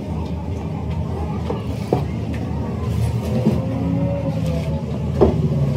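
A motor vehicle engine runs with a steady low rumble, with a faint tone that drifts slowly in pitch. Two short, sharp knocks come about two seconds in and again near the end.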